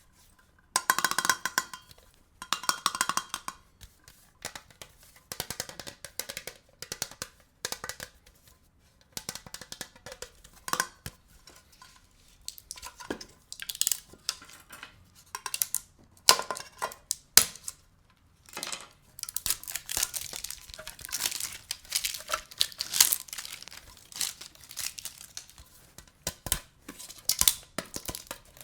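Perfume packaging being handled and opened: irregular rustling, scraping, rubbing and tapping of the box, with a squeaky rub in the first few seconds.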